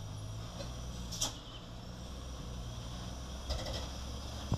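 Loaded Mitsubishi Fuso truck's diesel engine running low and steady as it creeps down a steep grade, with two short hisses about a second in and again about three and a half seconds in.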